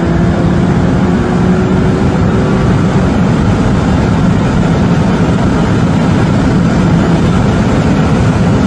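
Sports car engine at full throttle at very high speed, heard from inside the cabin: a loud, steady engine drone mixed with wind and road noise, with an upshift into sixth gear partway through.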